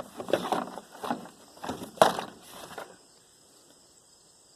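Objects in a box of toys being rummaged through: irregular knocking and rustling, with the sharpest knock about two seconds in, stopping after about three seconds.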